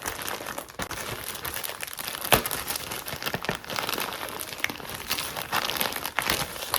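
Packaging crinkling and rustling as it is handled while items are unpacked from a kit box, with irregular sharp crackles, the loudest about two and a half seconds in.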